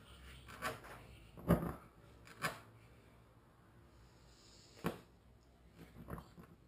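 A few separate knocks and clicks of small objects being handled and set down, the loudest about a second and a half in.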